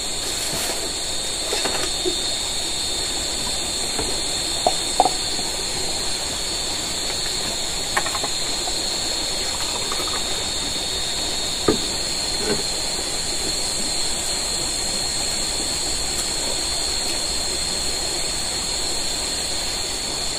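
Steady high-pitched hiss of background ambience, with a handful of light knocks and clicks between about five and thirteen seconds in.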